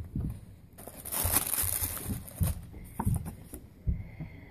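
Tissue paper rustling and crinkling as a small cardboard box is unpacked, with a few soft knocks from items being handled; the rustle is loudest about a second in.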